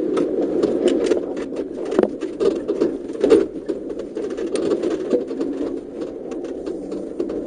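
Off-road 4x4 driving over a bumpy dirt forest track, heard from inside the cabin: a steady low drone with constant rattling and clicking, and sharper knocks about two and three seconds in.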